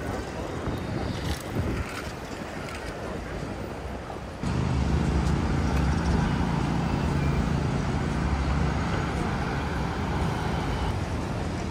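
City street traffic with wind on the microphone; then, after a sudden change about four seconds in, a steady low engine hum from a vehicle.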